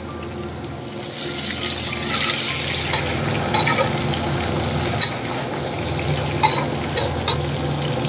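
Duck pieces sizzling as they are stir-fried in a wok, growing louder about a second in, with a metal spatula scraping and several sharp clinks against the wok.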